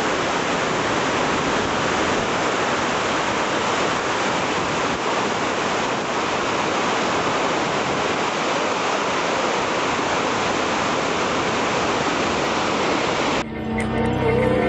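Steady, even rushing of whitewater from Nevada Fall on the Merced River. It cuts off sharply near the end, and instrumental music takes over.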